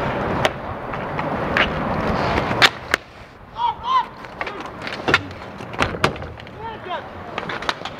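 Inline hockey play on an outdoor rink: the steady roll of inline skate wheels on the court, with sharp clacks of sticks and puck and a loud knock about two and a half seconds in. After that the rolling dies down, and short shouts from players come through between further stick clacks.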